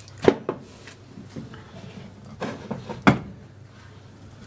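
Wooden rolling pin knocking and tapping on a worktop while dough is rolled out: two sharp knocks about three seconds apart, with a few softer taps in between.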